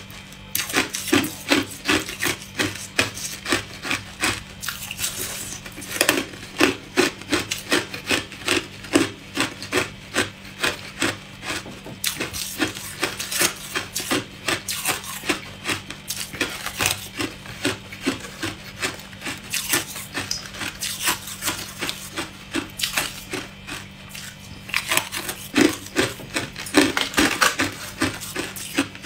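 Hard clear ice being chewed close to the microphone: a steady run of sharp, brittle crunches, about two a second, with a few short pauses.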